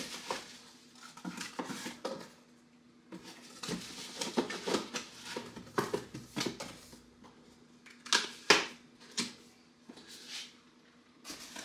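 Tools and a cardboard box handled on a workbench: scattered clicks, knocks and rustles, with the sharpest knocks about two-thirds of the way through.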